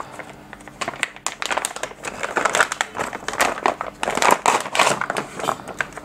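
Clear plastic bag of scanner cables crinkling as hands lift and turn it over: a dense run of irregular crackles.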